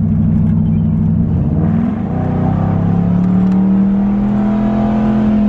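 2004 Ford Crown Victoria's 4.6-litre V8 accelerating hard, heard from inside the cabin. The engine note holds steady, rises, dips briefly about two seconds in, then climbs steadily in pitch through the rest.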